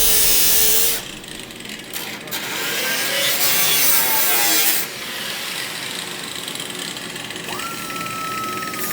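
Power tool working on the car's sheet-metal engine bay: a loud hiss for about the first second, then a quieter run with a wavering whine, and a steady high whine starting near the end.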